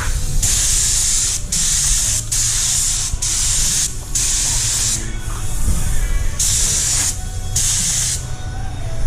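Air-fed paint spray gun hissing in repeated passes, about eight trigger pulls of a second or less each with short gaps between them, over a steady low rumble.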